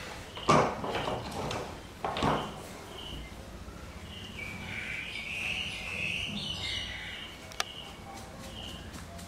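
Short high chirps repeating every half second to a second, with a longer burst of squeaky chattering from about five to seven seconds in. Two louder rustles come in the first few seconds, and a sharp click near the end.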